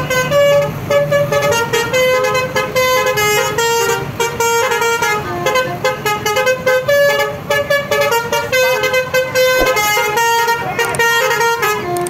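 A bus's telolet horn, a multi-tone musical air horn, playing a quick melody of short tooting notes, several to the second.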